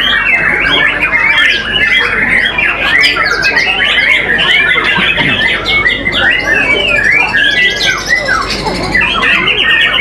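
Several caged white-rumped shamas (murai batu) singing at once: a loud, unbroken tangle of overlapping whistled and chattering phrases.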